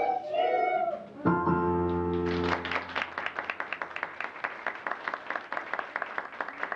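Music starts up: a held chord about a second in, then a quick, even rhythm of short notes, about five a second.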